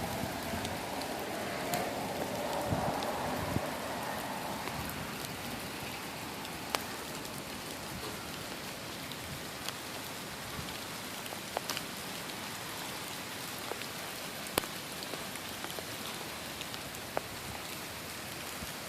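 Steady rain falling, with scattered sharp drop hits standing out from the hiss.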